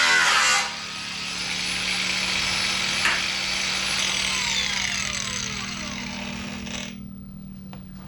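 Power cutting tool working on sheet steel. A loud burst of cutting eases off about half a second in, then the motor winds down with a falling whine and stops about seven seconds in, with a single sharp click midway.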